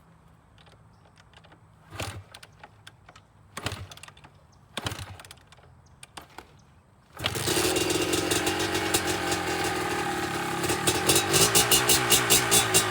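2005 Kawasaki KDX 200 single-cylinder two-stroke engine, on choke, being kicked over in a few short tries before it catches about seven seconds in and keeps running, its revs pulsing near the end. This is its first start after a full rebuild, with the fuel-air mixture not yet set.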